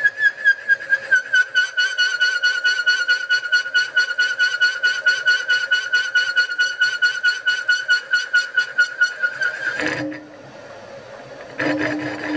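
A milling-machine boring head's cutter squealing as it bores a tube hole in a duplex stainless steel firebox tube plate. The high, steady screech pulses several times a second as the tool cuts through the very hard nitride skin left by laser cutting. It stops sharply about ten seconds in, then a short second squeal comes near the end.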